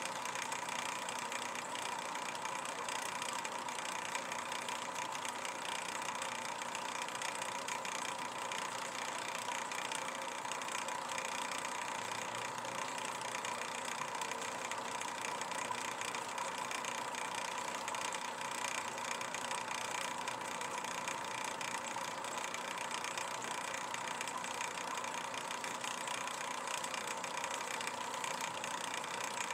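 A steady mechanical hum with hiss that does not change and has no distinct sounds in it.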